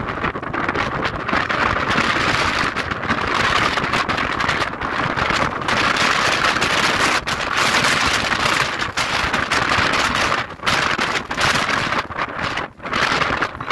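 Strong gusty wind blowing across the microphone as a squall line arrives: a loud, steady rush of noise broken by several brief drops.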